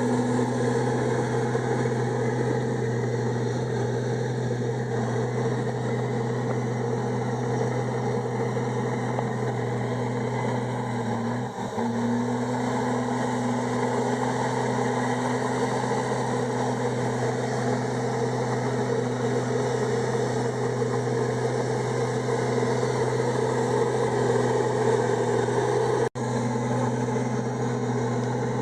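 Komatsu D51EX bulldozer's diesel engine running at a steady speed, with a constant low hum, briefly cut off once near the end.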